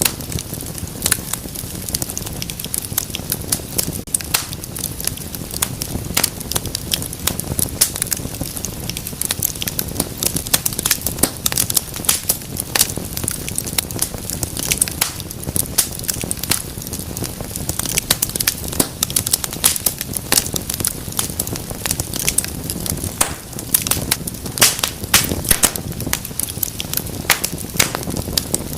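Wood fire burning in a fireplace, crackling and popping with many quick irregular snaps over a low steady rumble of flame.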